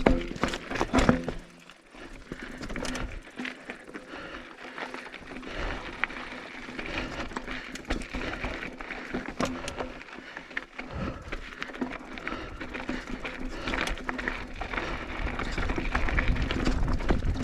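Mountain bike rolling over a rocky trail: irregular knocks, clicks and rattles from the tyres striking rock and the bike's frame and parts jolting, with a low rumble building near the end.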